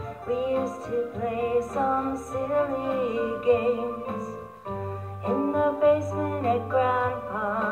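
Music: a woman singing a song over the built-in backing beat of a small electronic keyboard.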